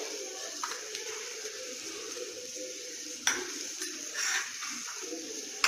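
Onions and green chilies sizzling steadily in hot oil in a steel kadai, with one short tap of the slotted spatula about three seconds in.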